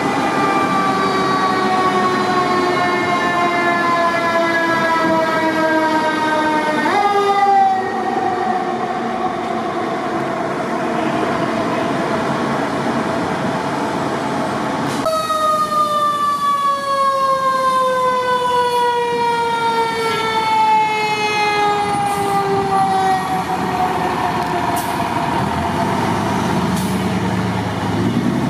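Fire truck's mechanical siren winding down in a long, slow falling wail, briefly spun back up about a quarter of the way in before fading. About halfway through a second siren starts high and winds down slowly over about ten seconds, with a truck's engine rumble coming up near the end.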